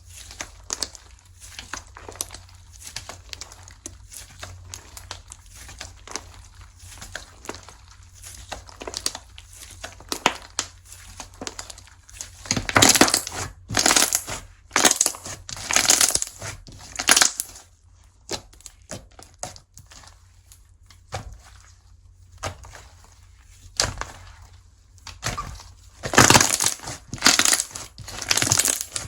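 Slime being squeezed and pressed by hand: a steady run of fine crackles and squishes, with louder bouts of crackling about halfway through and again near the end.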